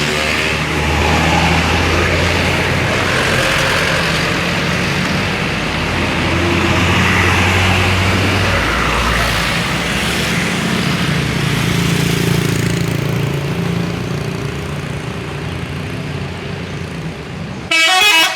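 Bus engine running steadily under constant street noise, with a short loud burst just before the end.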